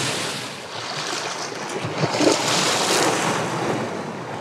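Sea surf washing against coastal rocks, with wind buffeting the microphone. The wash swells about two seconds in, then eases.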